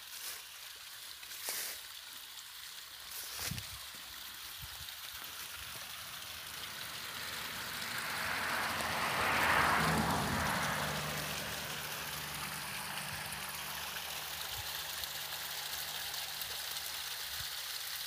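Small waterfall trickling down an earth bank and splashing into a shallow pool, swelling to its loudest about halfway through and then running steadily.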